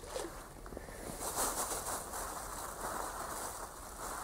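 A groundbait ball plops into the river right at the start, then rustling of waterproof clothing and dry grass as a person bends down at the bank, louder from about a second in.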